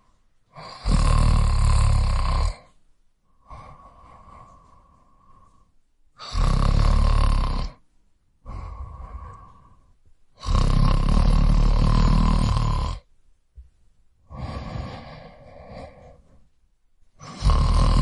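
A man snoring in a slow, regular cycle: four loud, rasping snores on the in-breath, each about two seconds long, with a quieter breath out between them.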